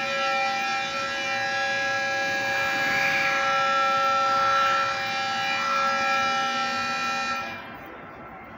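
Station platform departure bell ringing, signalling that the train is about to leave. It is a steady electronic ring of several held tones that starts suddenly and stops about seven and a half seconds in.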